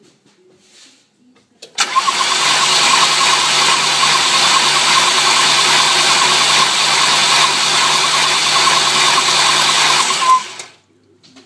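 Ford 4.6-litre V8 engine turned over on its starter, a steady mechanical whirr lasting about eight seconds that starts abruptly about two seconds in and cuts off near the end. The engine is cranked to check that oil now reaches the cam and lifters after a plugged oil restrictor was cleared.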